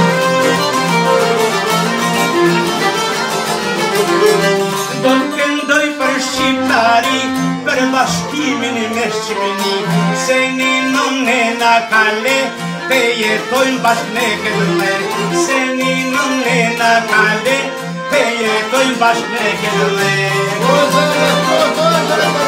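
Albanian folk music played live by a small ensemble: a violin, an accordion and long-necked plucked lutes playing a tune together.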